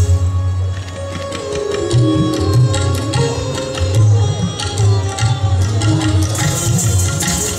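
Hindustani classical dance accompaniment in teental, the sixteen-beat cycle: tabla with a melody line over it. The low drum strokes drop away for a moment and come back about two seconds in.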